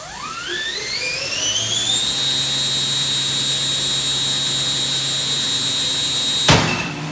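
Guardian bandsaw running its automatic brake test. A whine rises in pitch over about two seconds as the blade comes up to speed, then holds steady. About six and a half seconds in the safety brake fires with a sudden loud bang and the whine stops, confirming the brake is working.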